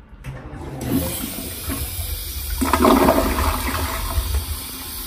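Smart toilet flushing from its electronic control panel: a rush of water that starts about a second in and grows louder about halfway through.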